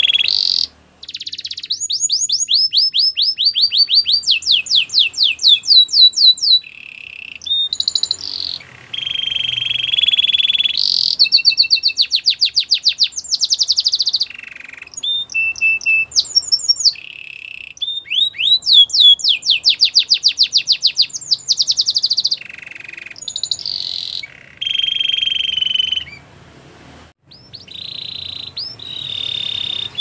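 Domestic canary singing a long song of fast trills and rolls, each run of rapidly repeated high notes giving way to another every few seconds, with short gaps between them and a longer pause near the end.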